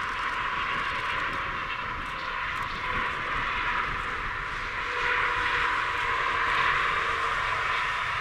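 Jet engines of an airliner coming in to land, a steady rushing roar that grows a little louder about five seconds in.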